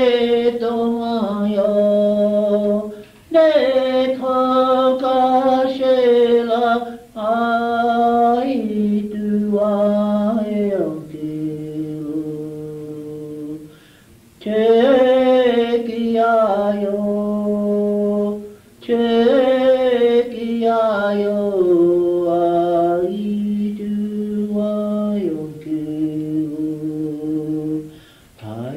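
Unaccompanied chanted Lakota-style song: a run of phrases that each start high and step down to a long held low note, with short breaths between them. The sound is dull and thin, as on an old portable cassette recording.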